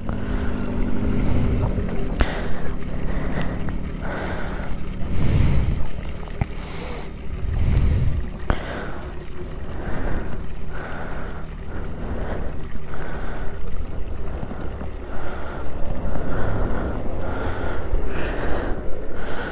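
Motorcycle engine running steadily on the move, with wind rushing over the microphone. Two strong wind gusts buffet it about five and eight seconds in.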